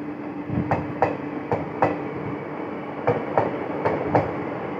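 Indian Railways passenger coaches rolling past, their wheels clacking over rail joints in quick pairs, a pair every second or so, over a steady rumble.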